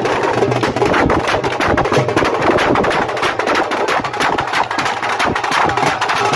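Rapid, continuous drumming on large barrel drums accompanying a Bundelkhandi Diwari stick dance: a dense rattle of fast hits.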